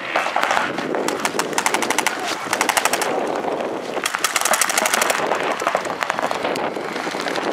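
Paintball markers firing in rapid strings of sharp pops, one run a little under two seconds long starting about a second and a half in, another about four seconds in.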